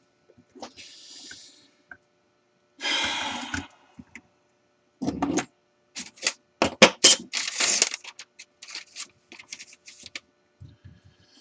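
Hammer peening a soft steel rivet, a burst of quick, irregular metallic taps that starts about halfway through and lasts several seconds, forming the rivet's head. A short rushing noise comes before it.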